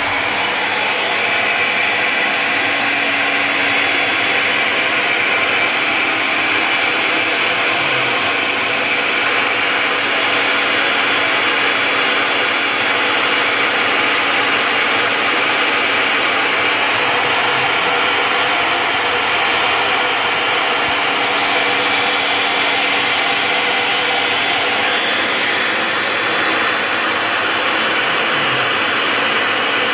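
CNC Tensilkut III spindle running a two-flute bit, milling a wood composite tensile specimen: a steady machine whine with a high-pitched tone and a cutting hiss, unchanging throughout.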